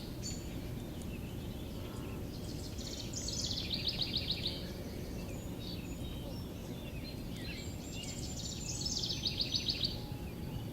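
A songbird twice sings a short, fast trill of high notes that steps down in pitch, over a steady low outdoor rumble.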